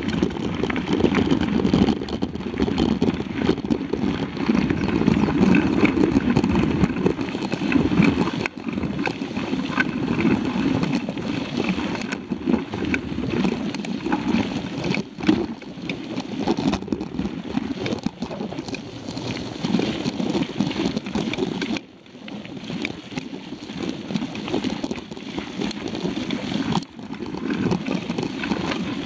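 Mountain bike rolling fast along a dirt road, heard from a camera mounted on the bike: a steady rumble of wind rush and tyre noise with rattling jolts from bumps, easing briefly a few times.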